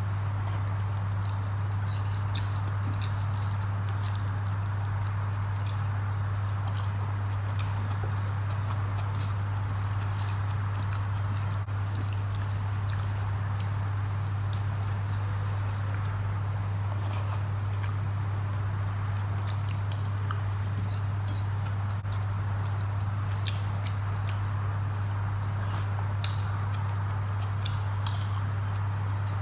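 Eating by hand: chewing and lip smacks with small wet clicks and squishes of fingers mixing moist rice on a plate, scattered throughout. Under it runs a steady low hum with a faint hiss.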